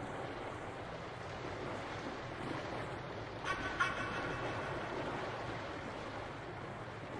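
Steady rush of wind and water noise aboard a sailboat, with a short, higher-pitched squeak-like sound about three and a half seconds in.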